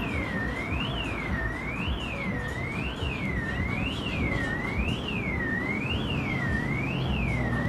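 Car alarm sounding: a siren tone sweeping down and back up about once a second, repeating steadily over a low background rumble.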